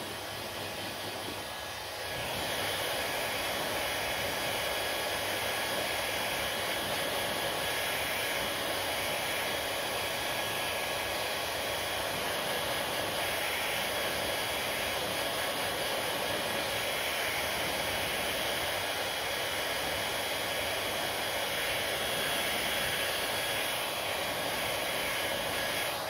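Handheld hair dryer blowing air steadily onto long hair, with a faint steady whine from its fan motor. It gets louder about two seconds in and then holds level.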